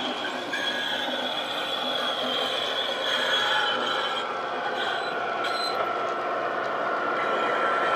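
Model HST running on a curved layout track: the rolling rattle of its small wheels on the rails, mixed with the Paxman VP185 diesel engine sound played by its DCC sound decoder through a small speaker. The sound has a few held whining tones that slowly sag in pitch, and it grows gradually louder as the power car approaches.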